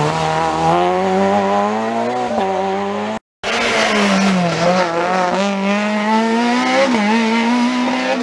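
Rally car engines run hard through a tight tarmac hairpin: the engine note dips as the car slows into the turn, then climbs as it accelerates out. A brief silent cut about three seconds in separates two cars. The second car's note drops briefly at a gear change near the end, then climbs again.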